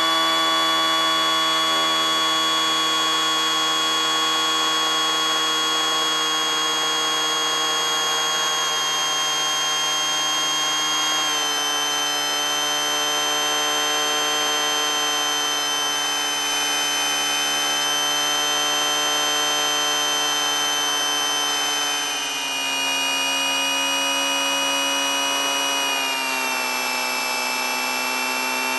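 Engine of the Raptorviews LoRyder aircraft running steadily in flight: a buzzing, whining drone whose pitch drops in small steps about a third of the way in, again around three-quarters of the way through, and once more near the end.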